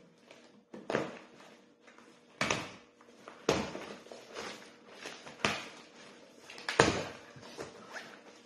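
Cardboard shipping box being opened by hand: irregular rustles, scrapes and light knocks as the flaps are pulled back and the contents handled. The loudest comes about two-thirds of the way through.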